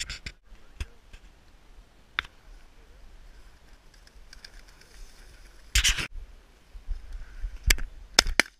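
Footsteps and clothing rustle of a hunter walking through frosted dry grass, with irregular light knocks, a short rush of noise about six seconds in and a few sharp knocks near the end.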